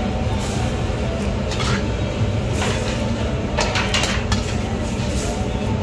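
Spicy jjamppong broth and vegetables poured from a wok into a noodle bowl, with short splashes and wok clatter, over a steady low kitchen rumble.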